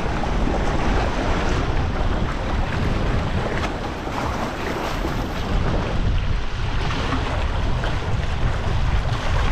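Wind buffeting the microphone over a steady rush of water along the hull of a small sailing dinghy under way in a fresh breeze.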